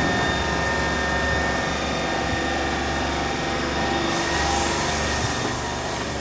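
Second-generation Glasgow Subway train standing at the platform with its doors open, a steady mechanical hum with several fixed whining tones over it.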